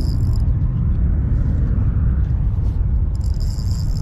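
Heavy wind buffeting the microphone, with a spinning reel's drag buzzing in two short spells, once at the start and again from about three seconds in, as a hooked carp pulls line.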